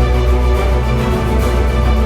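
Background music: a loud theme-style track with a deep, held bass and sustained chords.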